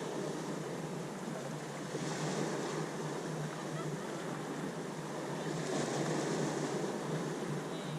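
Ocean surf washing in as a steady rushing hiss that swells twice, about two seconds in and again around six seconds.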